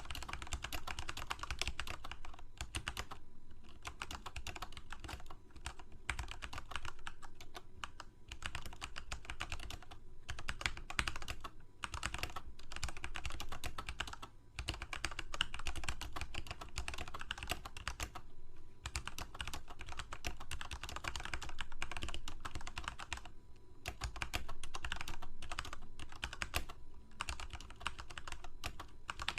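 Continuous typing on a computer keyboard: rapid runs of key clicks broken by brief pauses every few seconds.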